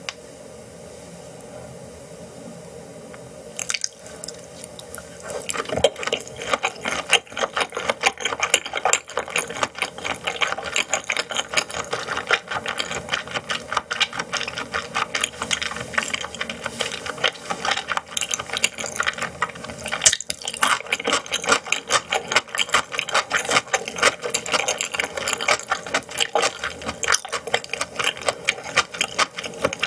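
Close-miked chewing of raw great yellowtail sashimi: dense, rapid, wet mouth clicks and smacks that start about five seconds in after a quieter opening.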